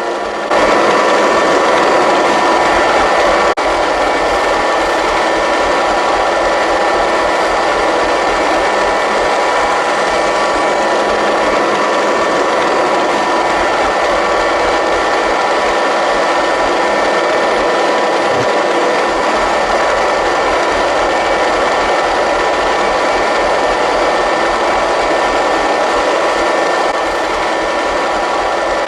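A small electric motor whirring steadily with a few fixed tones, starting abruptly about half a second in.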